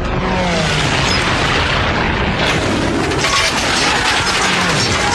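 Air-raid battle sound from a war film: a continuous din of explosions and booms, with aircraft passing overhead and a low engine drone that dips in pitch twice.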